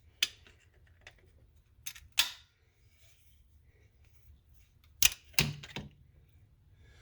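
A few sharp metallic clicks and clacks from hand tools handled against metal, with a short scraping rattle about two seconds in and the loudest click about five seconds in.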